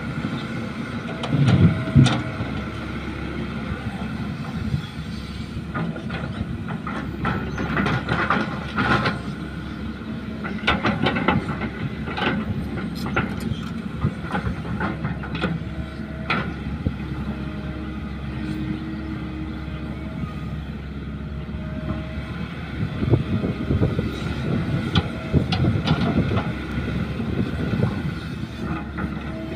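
Caterpillar hydraulic excavator's diesel engine running under load as it swings, digs and lifts soil. There is a heavy thud about two seconds in, and clanks and rattles of the bucket and tracks come in bunches as it works.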